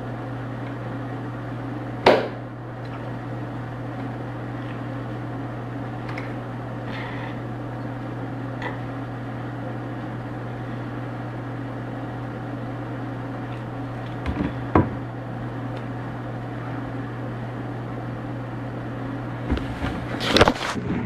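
Steady low hum with background hiss, broken by a sharp knock about two seconds in, another knock about fifteen seconds in, and a cluster of knocks and rustles near the end.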